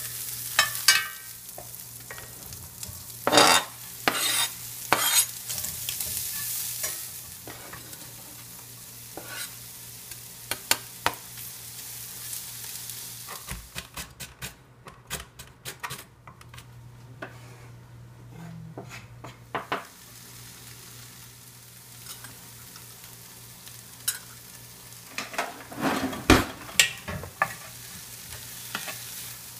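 Meat sizzling in a cast iron skillet as it is stirred and scraped with a metal spoon. Then a chef's knife chops celery on a plastic cutting board in quick, even taps for about six seconds. Then a wooden spoon scrapes and stirs onions, peppers and meat sizzling in the skillet.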